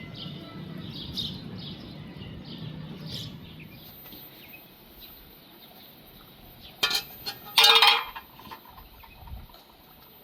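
Pots and dishes clattering twice, about seven and eight seconds in, the second longer and ringing. Before that come faint bird chirps over a low rumble.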